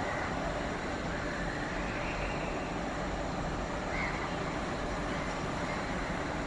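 Steady background noise of distant traffic and trains beside the tracks, with a brief faint high tone about four seconds in.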